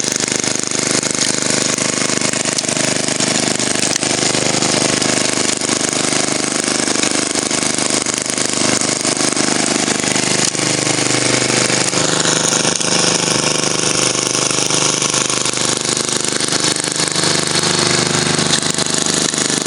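Noma Gran Prix 5-23 snowblower's Tecumseh 5 hp single-cylinder engine running steadily under load while the auger and impeller throw snow.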